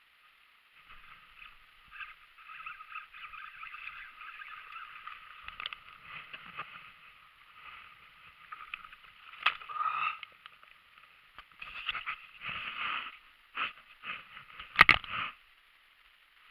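Hooked largemouth bass thrashing and splashing at the surface during the fight, water sloshing around it, with sharp loud splashes about ten seconds in and again near the end.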